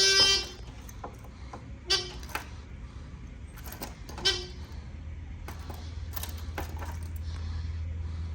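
Fire alarm horn sounding one beep at the start, then two short chirps about two and four seconds in, with light clicks between. A low steady hum grows in the second half.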